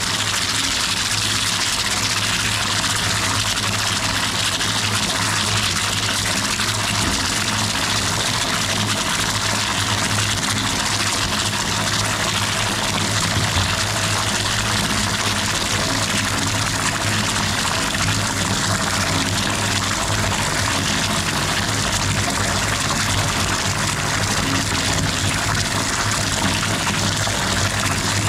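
Bathtub filling from a running tap, water pouring steadily into the tub, with a steady low hum underneath.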